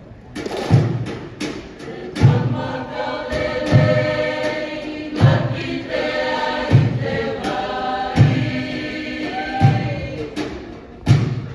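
A large group of voices singing a Pacific Island song in harmony, over a heavy low beat that falls about every second and a half, with lighter sharp ticks between the beats.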